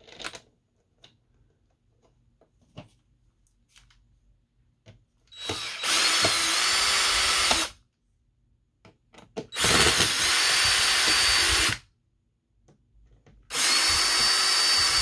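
Power drill driving screws to fasten speaker grilles, in three runs of about two seconds each, its motor whine climbing to pitch at the start of each run. Light clicks and handling noises come between the runs.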